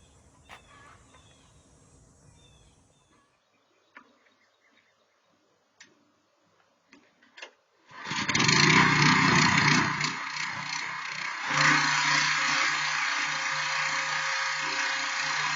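Faint outdoor background with a few small chirps and clicks, then about eight seconds in, loud background music starts abruptly and runs on steadily.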